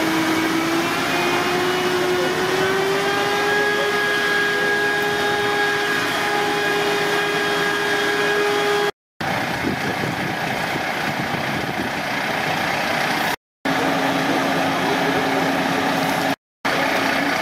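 A motor running with a steady whine that rises in pitch over the first few seconds and then holds. After a couple of cuts, a fire engine idles with a lower steady hum.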